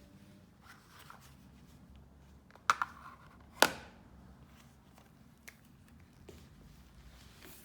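Handling clicks of a Lightning cable plug being fitted into a device: two quick clicks about two and a half seconds in, then a louder, sharper click a second later.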